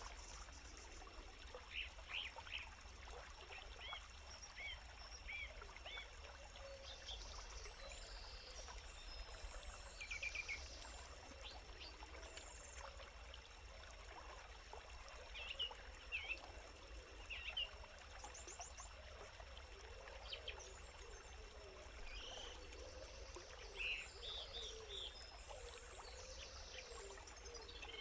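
Faint forest ambience: a steady hiss with a thin, high steady tone, and short bird chirps scattered throughout, a few louder ones in the middle and near the end.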